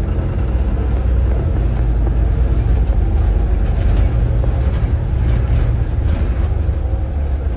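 A Volvo B7RLE single-deck bus under way, heard from inside the saloon: a steady low rumble from its rear-mounted 7-litre diesel engine, with road and body noise over it.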